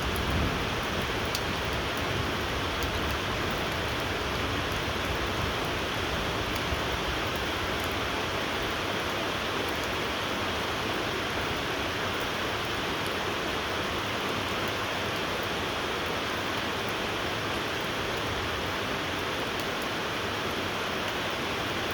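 Steady rainfall: an even hiss of rain with scattered faint drop ticks.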